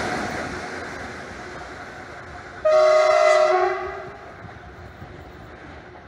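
Electric locomotive moving away, its rolling rumble fading. About two and a half seconds in comes one loud horn blast of about a second, a chord of several notes held steady, which then cuts off.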